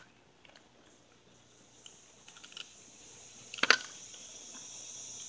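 Small clicks and taps of a shell puller being worked against an expanded 12-gauge shell stuck in the chamber of a homemade pipe slam-fire shotgun, with a sharper knock about three and a half seconds in. A steady high hiss comes up in the background after the first second or so.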